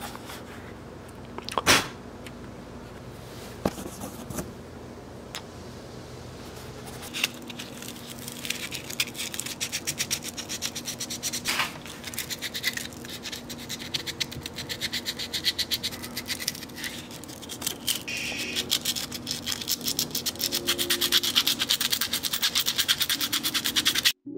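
A 3D-printed plastic medallion being sanded by hand against fine sandpaper: a few light knocks, then rapid rubbing strokes from about a third of the way in that grow louder and quicker toward the end.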